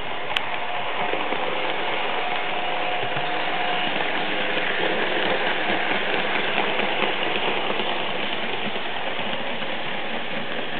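Märklin HO model E 40 electric locomotive with its HLA motor running along the track: a steady rolling rattle of wheels on rails with a faint motor hum and light clicks, a little louder in the middle as it passes close by.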